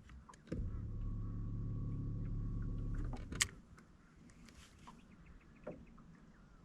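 A motor hums steadily for about two and a half seconds and cuts off, followed by a single sharp click, then faint ticks.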